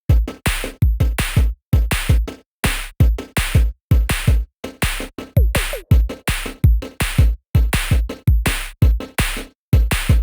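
Electronic music with a drum-machine beat: punchy kicks with deep bass, about two hits a second, broken by short silent gaps.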